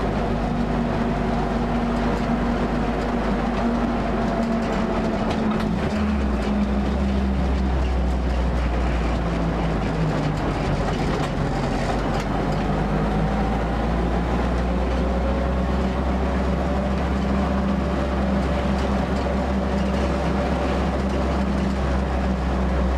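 Vintage military Jeep engine running as it drives along, its note rising and falling with road speed and changing sharply about six seconds in.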